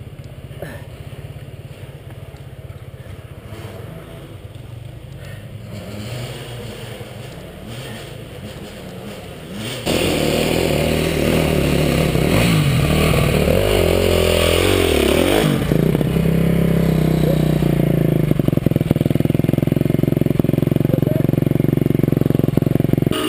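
Honda CRM two-stroke enduro motorcycle engine ticking over quietly, then about ten seconds in revving up sharply and running hard, its pitch rising and falling as the bike pulls away.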